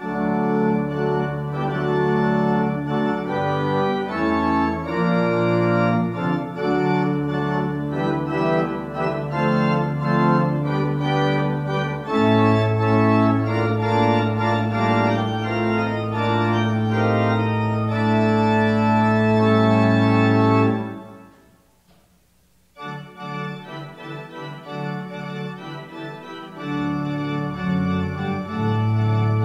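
Pipe organ playing sustained chords. About twenty seconds in the music stops and dies away, and after a brief pause it resumes more softly.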